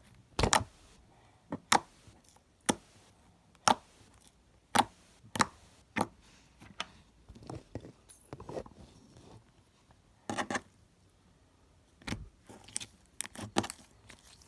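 Freshly borax-activated homemade slime being squished and stretched by hand, giving sharp wet pops and clicks at irregular intervals, roughly once a second.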